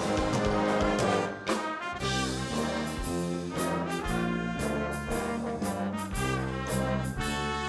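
Instrumental music with a brass sound, held chords moving in step over regular percussive hits.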